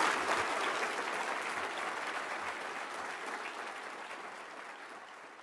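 Audience applauding, loudest at the start and slowly dying away.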